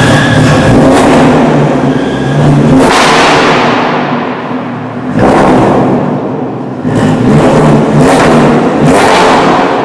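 Volkswagen Golf R32 Mk5's 3.2-litre VR6 engine running just after start-up, then blipped hard several times from about three seconds in, each rev falling back to idle. The exhaust note is very loud.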